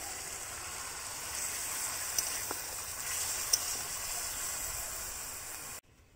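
Spiced potol and fish mixture sizzling in a hot aluminium kadai as water is poured in and stirred, a steady hiss with a few light taps of a metal spatula against the pan. The sound cuts off abruptly just before the end.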